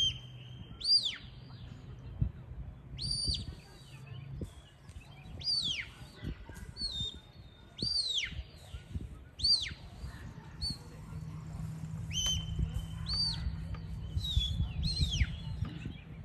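A sheepdog handler's whistle commands to a working dog: short, high whistles, some held on one note and others swooping up and down, given in quick phrases every second or two.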